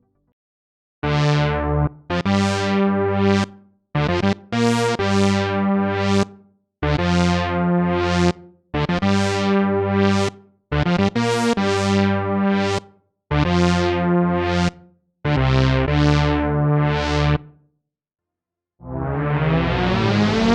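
Software synthesizer playing a preset: a run of short chords, each brightening and then dulling as its filter opens and closes, with brief silences between them. About a second before the end a new sustained sound fades in.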